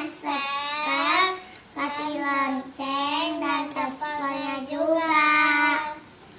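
A child singing a short melody in held notes, phrase after phrase with brief breaths between, with no instrument heard, stopping about a second before the end.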